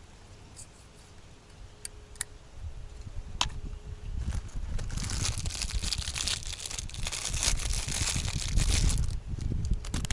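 Plastic packaging crinkling and tearing open, most likely the wrapping of the new oil filter or its O-rings. A few light clicks come first, and the crinkling starts about four seconds in and runs dense and loud for several seconds.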